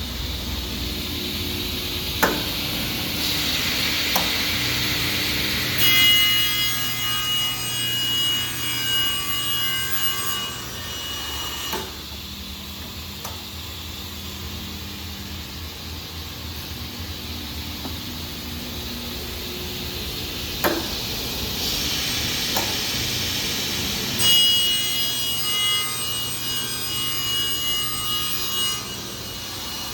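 Vertical band saw running steadily and making two cuts, with a high ringing whine while the blade is in the work, starting about six seconds in and again near the end. A few sharp knocks in between.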